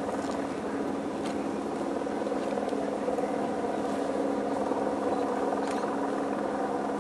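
An engine running steadily, a constant drone with a few faint sharp snaps over it.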